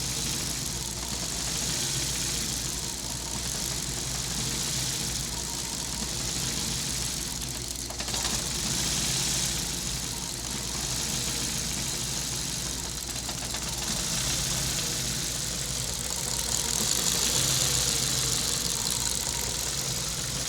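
Ford Focus engine idling roughly, a steady low running sound with a hiss that swells and fades every few seconds and one sharp click about eight seconds in.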